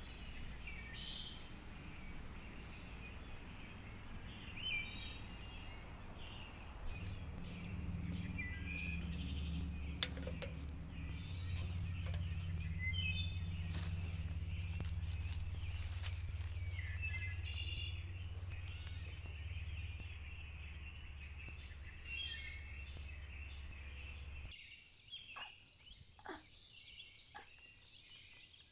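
Small birds chirping and calling over outdoor ambience, with a low steady rumble underneath through most of it that cuts off abruptly near the end.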